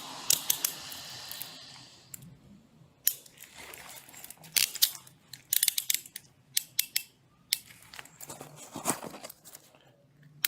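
Scattered sharp clicks and short rustles of close handling noise on a body-worn camera, with a steady hiss that fades out about two seconds in.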